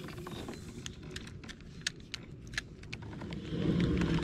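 Baitcasting or spinning fishing reel being cranked to retrieve a swimbait, with its gears giving irregular sharp clicks over a low rumble that grows louder near the end.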